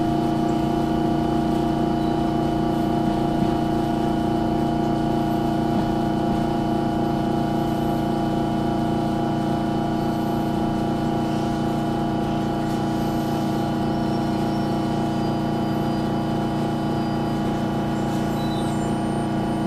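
Steady hum of an electric commuter train's onboard equipment, heard inside the car as the train slows alongside the platform and stops. The hum keeps a constant pitch throughout.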